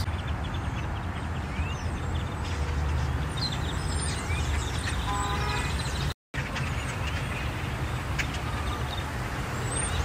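Steady low traffic rumble from a parking lot, with scattered chirps and squeaks from a huge flock of birds overhead and a short honk-like call about five seconds in. The sound cuts out completely for a moment just after six seconds.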